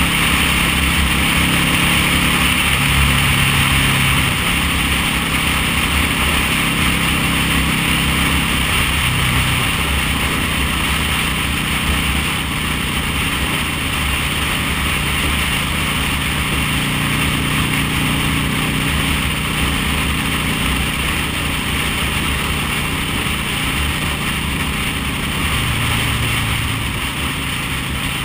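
V-twin cruiser motorcycle engine running steadily at cruising speed, with a constant rush of wind noise over the bike-mounted microphone.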